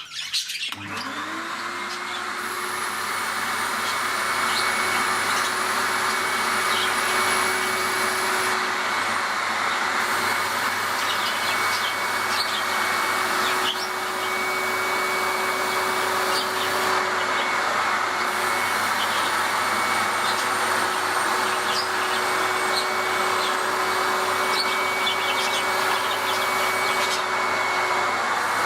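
MIE Ecologico water-filter vacuum cleaner with separator switching on about a second in and spinning up over a few seconds, then running steadily with a high whine, its exhaust vents covered by a cloth.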